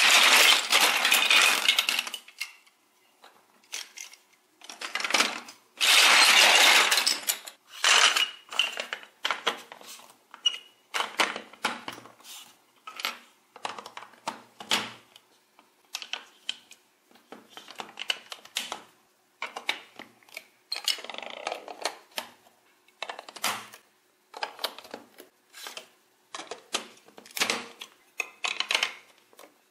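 Large plastic building bricks clattering as hands rummage through a heap of them, twice in long bursts near the start, then a run of short clicks and rattles as bricks are picked up and pressed together.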